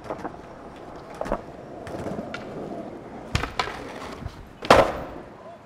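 Skateboard wheels rolling on concrete, with several sharp clacks of the board. The loudest smack comes about three-quarters of the way through, as the board works a concrete ledge.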